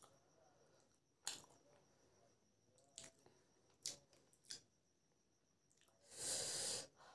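Close-up eating sounds of hand-eaten biryani: four sharp wet clicks spread over the first few seconds. About six seconds in comes a loud rush of breath lasting under a second, as from the heat of raw green chillies.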